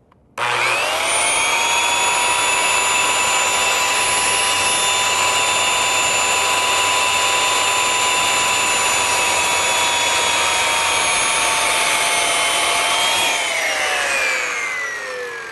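Porter-Cable corded circular saw starting up and cutting a half-depth shoulder kerf across a 4x4 post, its motor and blade whine holding steady through the cut. About thirteen seconds in the whine rises briefly, then falls steadily as the trigger is released and the blade coasts down.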